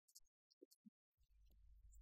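Near silence: room tone with a few faint clicks and a faint low rumble starting a little past halfway.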